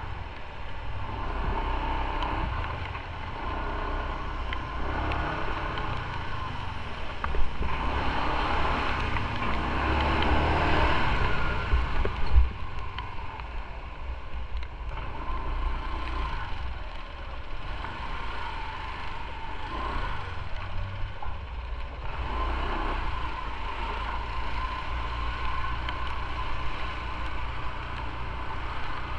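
Motorcycle engine running as the bike rides along, with wind noise on the microphone and two brief knocks near the middle.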